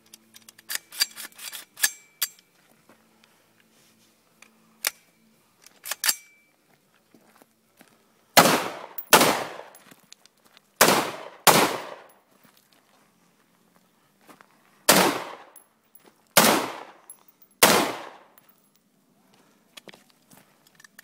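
ADC SWAT carbine in .223 Remington firing: seven loud shots, some in quick pairs about half a second apart, each followed by a long echoing tail. A run of fainter, sharper cracks comes in the first two seconds.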